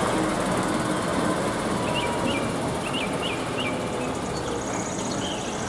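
Concrete mixer truck driving slowly along a street: steady engine and road noise. A bird gives about six short chirps in the middle.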